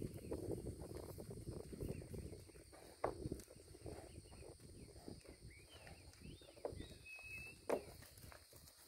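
Cattle hooves clopping and scuffing on concrete slabs as cows walk across one after another, with a few sharper knocks about three seconds in and near the end.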